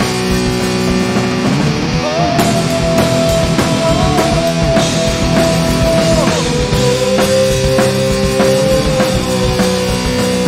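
Rock music with drums and electric guitar: a lead guitar holds long notes that bend up and down in pitch over a steady beat.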